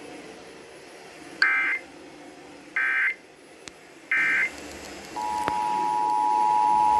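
Emergency Alert System tones received over FM radio: three short bursts of EAS digital data tones about a second and a half apart, then the steady two-tone EAS attention signal starting about five seconds in.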